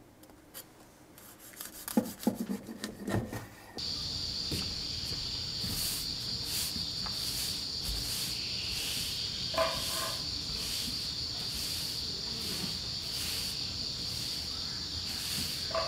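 A knife knocks a few times through a grilled tortilla roll onto a wooden cutting board. About four seconds in, a steady high-pitched insect drone begins, with the swish of a broom sweeping a wooden walkway about twice a second.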